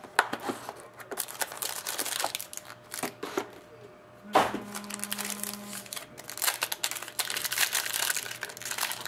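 Foil wrapper of a Panini Prime hockey card pack crinkling and crackling as hands handle it and tear it open, the crinkling growing denser in the second half. A single sharp knock comes a little over four seconds in.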